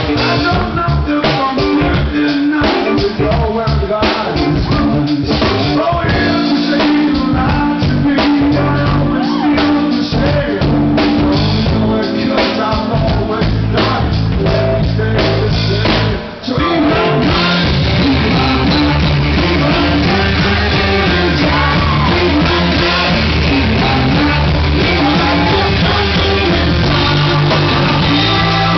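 Live rock band playing: a male singer over electric guitar, bass and drums. About halfway through the band drops out for a moment, then comes back in fuller.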